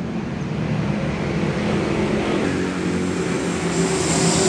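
A vehicle engine running steadily, a low even hum that grows slightly louder toward the end.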